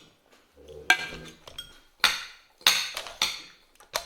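Cutlery clinking against plates and dishes during a meal: about five sharp clinks, each ringing briefly.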